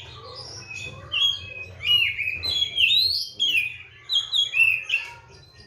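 Oriental magpie-robin (kacer) in full song: a run of loud, whistled phrases with quick rising and falling slurs, starting about a second in and broken by short pauses.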